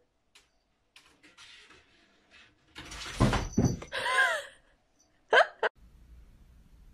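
A heavy thump about three seconds in, typical of a cat dropping from the top of a wardrobe onto the floor, followed by two short cries, the second one sharp and rising.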